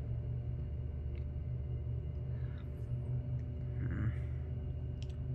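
Steady low electrical hum of room noise, with a few faint, soft chewing sounds from someone eating a chocolate snack cake, about two and a half and four seconds in.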